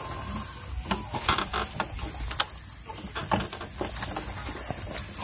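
Steady high-pitched drone of insects, with scattered footsteps scuffing on a dirt and gravel track.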